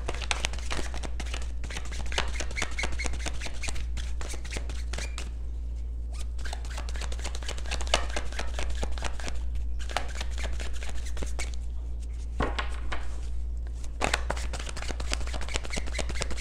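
A deck of tarot cards shuffled by hand, a dense run of quick papery slaps and flicks as the cards are passed from hand to hand, with brief pauses about five and eleven seconds in.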